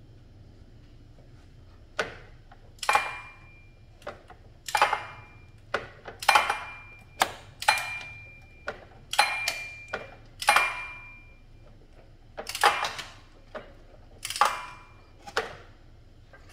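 Ratchet wrench clicking in about a dozen separate strokes, irregularly spaced about a second apart, each a quick run of metallic clicks with a faint ringing, as the engine is turned over by hand.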